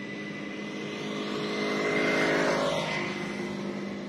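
A motor vehicle's engine running past close by, growing louder to a peak about halfway through and then fading.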